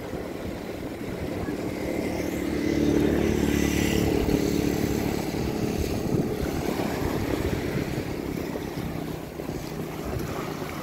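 A motor engine passing by with a steady drone that grows to its loudest a few seconds in and then fades away, over the wash of small waves on the sand.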